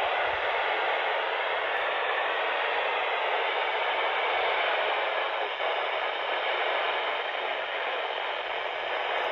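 Steady radio static: a receiver giving out an even hiss with no clear signal coming through.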